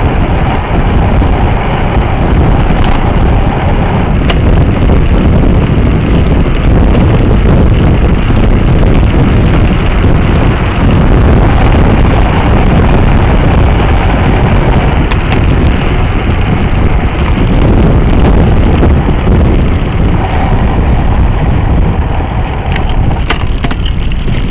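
Steady, loud wind and road rumble picked up by a small action camera mounted low on a moving bicycle, with a few sharp knocks from bumps in the road.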